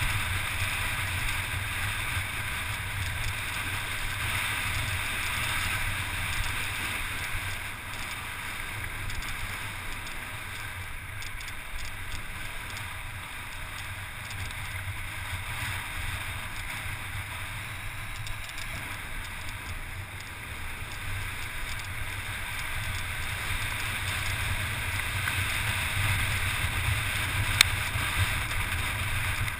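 Wind rushing and buffeting over the camera microphone, with a steady rumble and crunch of wheels rolling fast over a loose gravel track. A single sharp click near the end.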